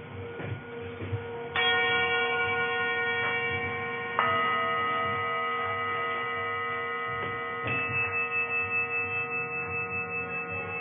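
Metal singing bowls struck twice, about a second and a half in and again about four seconds in, each stroke ringing on with many long, steady overtones. Near the end the ringing wavers in an even, fast pulse.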